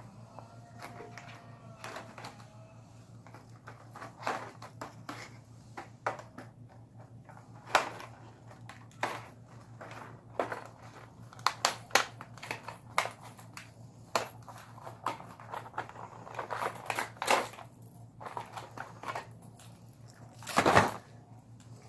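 Scattered clicks, taps and rustles of air-compressor couplers and tools being handled, with a brief louder rustling noise near the end, over a steady low hum.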